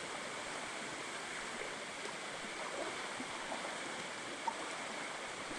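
Steady rushing of water from a waterfall and stream.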